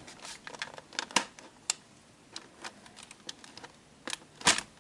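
Irregular clicks and taps of a Sony Video Walkman's plastic housing being handled and pried apart as the top section is worked loose, with a couple of louder snaps near the end.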